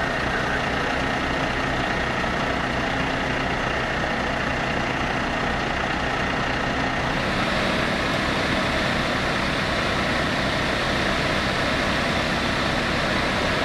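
Fire engine's heavy diesel engine running steadily, with a steady hiss that grows brighter about seven seconds in.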